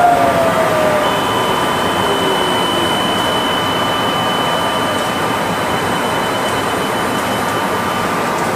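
Kanazawa Seaside Line 2000 series rubber-tyred automated guideway train running, heard from inside the car. The falling whine of its traction motors ends about a second in, leaving a steady rolling noise with a thin high tone running through it.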